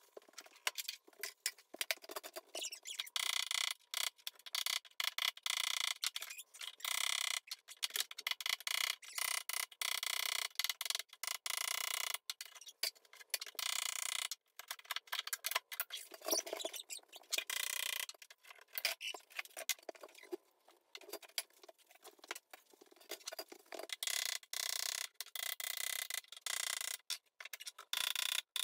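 A small crowbar scraping, prying and knocking at wooden kitchen cabinets and shelving during demolition. It comes as a rapid, choppy stream of short ticking clatters broken by brief gaps of silence.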